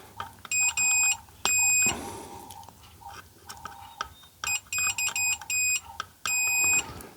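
Multimeter continuity tester beeping in short, irregular bursts as its probes touch the wiring: a few beeps in the first two seconds, then a quicker run from about four and a half seconds in, the last one longest. Each beep signals a closed circuit between the probe points.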